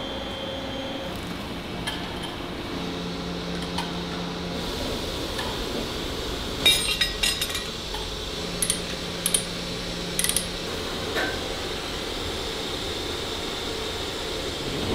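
Steady hum of metal-cutting machinery in a machine shop, with a low tone that comes and goes, and sharp metal clinks, a quick cluster about seven seconds in and a few more around nine to ten seconds.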